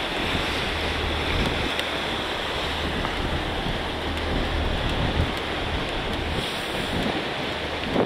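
Wind buffeting the microphone over choppy open sea, with waves slapping and splashing and a low hum underneath.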